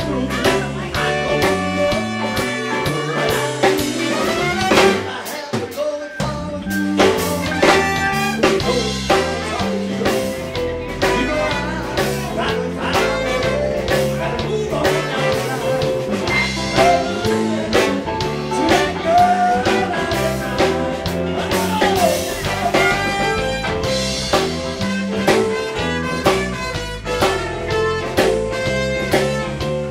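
Live blues band playing a jam: sustained instrumental notes over a steady drum beat, with a few bent notes about two-thirds of the way through.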